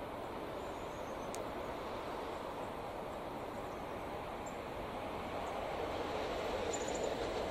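Train hauled by an SBB Re 620 electric locomotive approaching from far off: a steady rolling rumble of wheels on rail that grows slowly louder.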